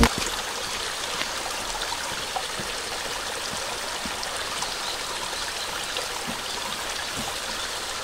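Small mountain stream running over rocks: a steady, even rush and trickle of water.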